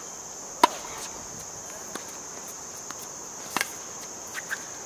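Tennis ball struck by a racquet in a rally: a sharp, loud hit about half a second in, a faint distant hit about two seconds in, and another close hit about three and a half seconds in. A steady high insect drone runs underneath.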